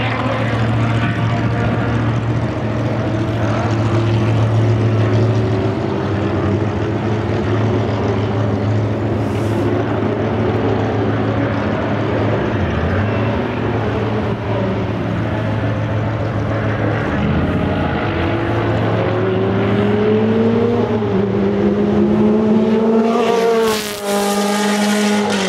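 Several racing sports car engines running together, their note rising in steps as the revs are raised over the last few seconds.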